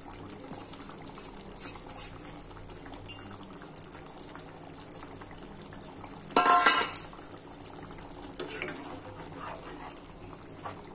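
Fish curry in yogurt gravy simmering in a pan, a steady low hiss, with a sharp click about three seconds in and a loud, ringing clatter of kitchen utensils or cookware a little past halfway.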